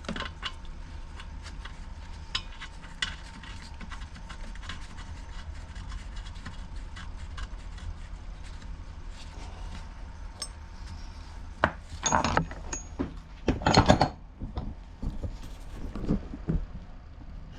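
Tools and small parts being handled on a workbench: scattered light clicks and knocks, with a couple of louder clatters about twelve and fourteen seconds in, over a steady low hum.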